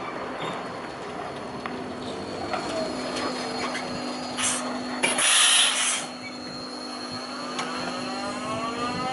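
Battery-electric rear-load rubbish truck pulling up and stopping, with a steady electric whine. A loud hiss of air lasts about a second a little past the middle as it stops, and near the end a whine rises in pitch as an electric motor spins up.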